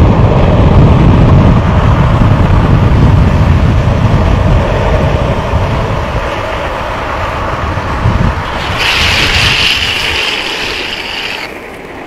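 Wind buffeting the microphone and longboard wheels rolling on asphalt at downhill speed, a loud low rumble that eases after about six seconds. About nine seconds in, a higher hissing screech of urethane wheels sliding on the asphalt lasts nearly three seconds and cuts off suddenly.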